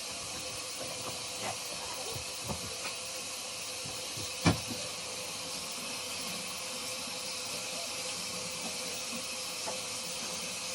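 Tap water running steadily over a beauty blender sponge being rinsed and squeezed under it, with a sharp knock about four and a half seconds in.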